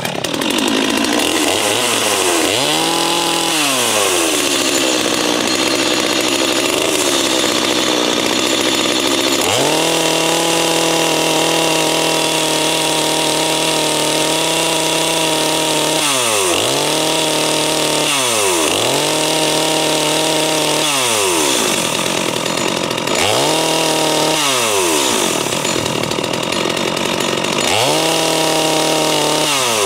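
Holzfforma G255 45cc two-stroke chainsaw, a Stihl MS250 clone, idling and being revved with the bar in the air. It gives one long held rev of about six seconds and several short blips of the throttle, each rising and falling back to idle.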